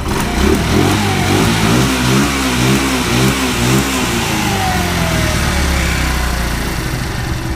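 GY6-type single-cylinder scooter engine running on a freshly cleaned carburetor with its clutch not yet fitted. The revs rise and fall in the first few seconds, then settle to a steadier idle.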